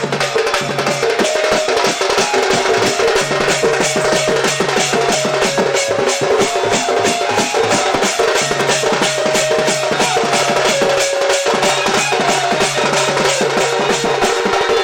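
Loud, fast percussion-led music for danda dance: a dense, rapid run of drum strokes with a held melody line over a low bass tone.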